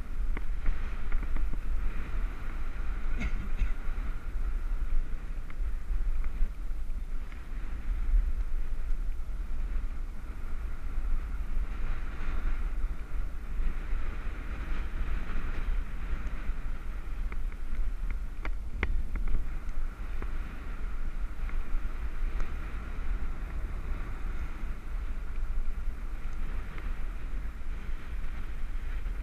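Wind buffeting a helmet-mounted GoPro's microphone while riding a road bike, a steady low rumble with rushing hiss from the ride. A couple of brief clicks come through, one a few seconds in and one past the middle.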